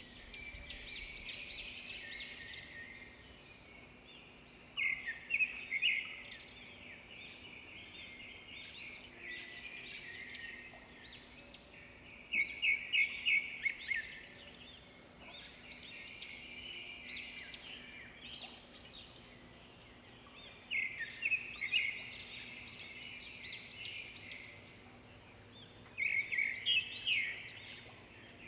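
Birds singing and chirping: a loud phrase of rapid repeated notes breaks out four times, a few seconds apart, over continuous high chirping.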